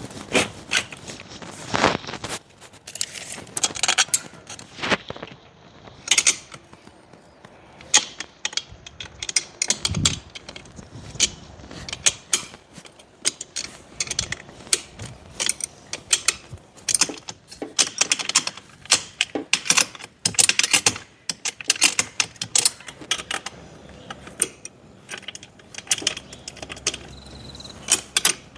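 Ratchet spanner clicking in short runs, with metal clinks, as the awning bracket's bolts are tightened.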